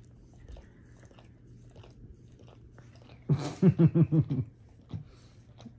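Bernese mountain dog licking a man's face and beard: faint wet licking and smacking clicks. A little past halfway, a loud burst of voice in quick pulses lasts about a second.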